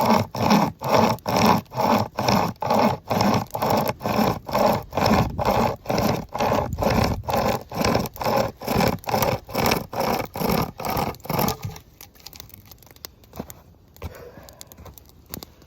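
SOL pocket chainsaw, a hand-pulled chain with loop handles, sawing back and forth through a log at about two rasping strokes a second. The strokes stop suddenly about twelve seconds in as the cut breaks all the way through.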